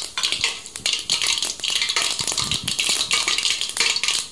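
Mustard seeds crackling and popping in hot oil in an aluminium pot: a dense run of sharp pops over a sizzle. This is the tempering stage, with the oil hot enough for the seeds to splutter.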